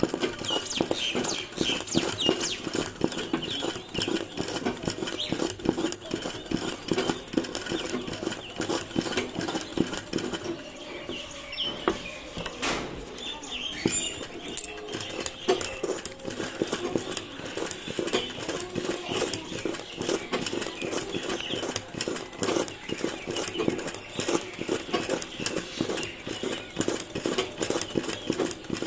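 Domestic sewing machine running, its needle clattering in a fast, even rhythm as it stitches appliqué cloth onto fabric. It eases off briefly about ten seconds in, then runs on at full pace.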